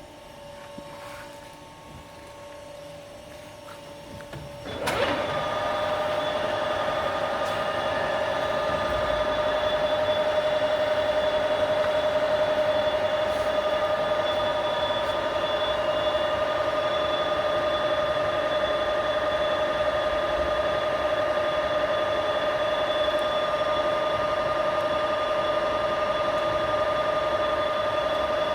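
Heidenreich & Harbeck Hanseat 480 centre lathe's spindle switched on about five seconds in, running up to speed in a moment and then running steadily with a constant machine whine.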